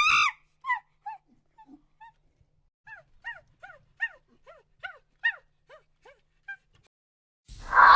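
An animal's short, high whining cries, repeated roughly twice a second after one loud call at the start.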